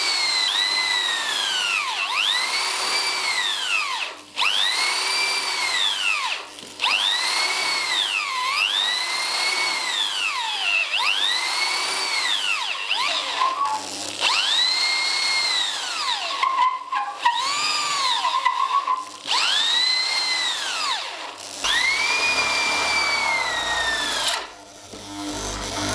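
Power drill driving a long extended bit down into the wooden bench frame. The motor whine rises and sags in pitch in repeated runs of about two seconds, with brief pauses between them, as the bit bites and is eased off.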